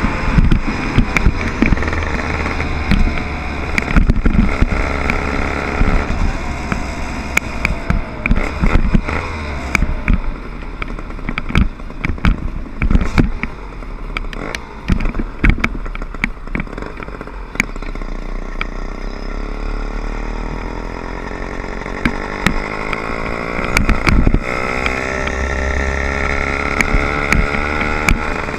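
Small 60/80cc motor bike engine running under way, its pitch climbing as it speeds up near the end. Frequent short knocks and a low rumble run through it.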